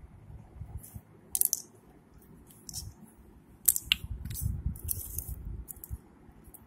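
Small plastic toy pot and spoon being handled, giving scattered light clicks and taps, the loudest a little under four seconds in, over a low rumble of handling noise.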